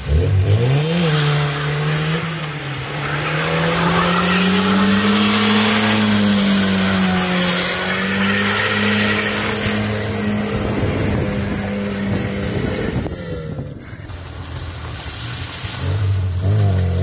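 Classic Lada sedan's four-cylinder engine revved up sharply and held at high revs while the rear tyres spin and squeal in a burnout, its pitch swaying as the car slides. The revs drop briefly about thirteen seconds in, then climb again near the end.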